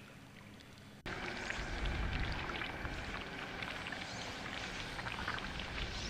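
Rushing, pouring water that cuts in suddenly about a second in, after a faint hiss.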